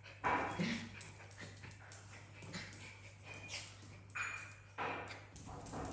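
Dog vocalising in play: several short, separate whines and yelps.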